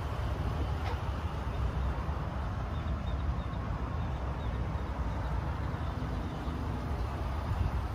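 A steady low rumble that holds at an even level throughout.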